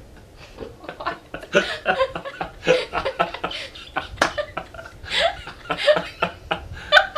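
People laughing in a fit of repeated short giggles and chuckles.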